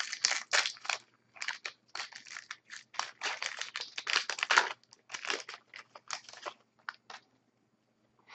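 Crinkling and tearing of a foil trading-card pack wrapper being opened, with cards rustling as they are handled, in a quick run of short, irregular rustles.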